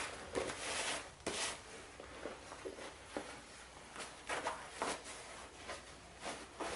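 Rustling of a uniform and a nylon plate carrier being put on and adjusted, with scattered short clicks and taps from the gear.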